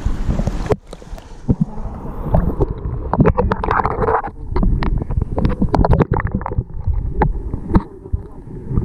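Sea water around shoreline rocks heard through a submerged action-camera housing. About a second in, the open hiss of surf cuts off and gives way to a muffled underwater rumble full of sharp clicks and pops.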